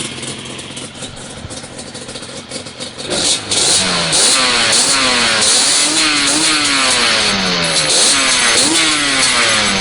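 Yamaha Banshee's twin-cylinder two-stroke engine, freshly rebuilt, idling for about three seconds and then revved up and down over and over, its pitch rising and falling with each blip of the throttle. Just started for the first time that day, it is not running right.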